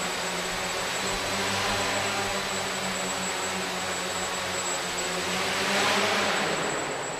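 Small electric multirotor drone's propellers buzzing in flight, a steady whine with a broad hiss that swells as the drone comes close about six seconds in.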